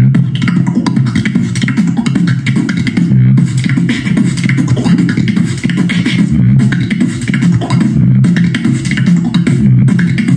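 Human beatboxing: a fast run of mouth-made drum sounds, kicks, snares and hissing hi-hats, over a steady low bass. The hissing top drops out briefly about three seconds in and again about eight seconds in.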